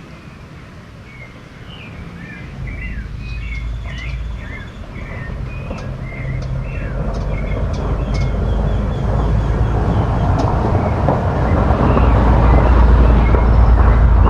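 Birds chirping with short, rapid calls over a low rumble. The rumble swells steadily louder through the second half and drowns the birds out.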